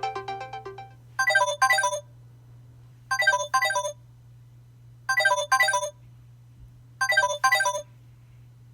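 Samsung Galaxy Note 10 ringtone playing: a double ring of short, quick electronic note runs, the pair repeating about every two seconds. In the first second the previous melodic ringtone fades out.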